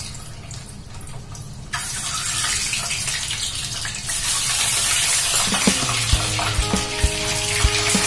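Hot oil sizzling in a frying pan as boiled eggs are dropped in, the sizzle growing louder in steps as more eggs go in. Background music with a light beat comes in about halfway through.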